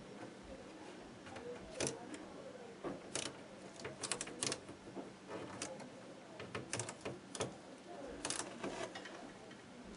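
Irregular light clicks and taps, with some rustling, from hands pressing an adhesive LED tape-light strip into place along a plywood enclosure's panel.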